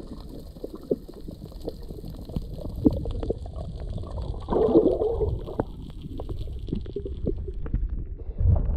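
Water sloshing and gurgling around a camera held underwater while swimming, with scattered clicks. There is a louder gurgle about halfway through and a heavier splash near the end as the camera comes up to the surface.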